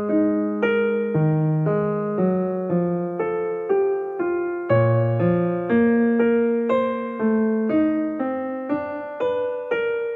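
Background piano music: a slow melody of struck notes that each fade away, over low bass notes.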